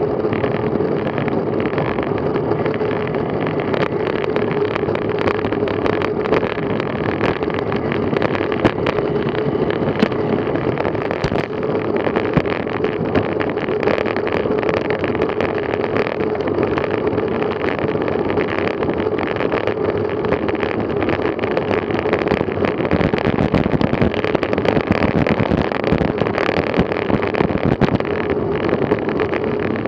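Road bicycle at about 21 mph: wind rushing over the bike-mounted camera's microphone with tyre noise from the road, a steady hum and scattered small clicks and rattles.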